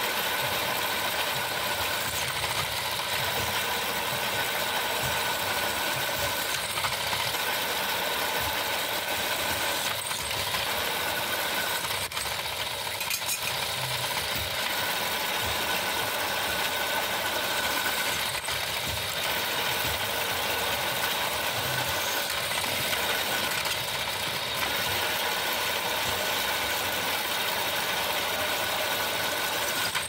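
Drill press running as a twist drill bit cuts through a steel strip: a steady motor hum with a constant high whine from the bit in the metal.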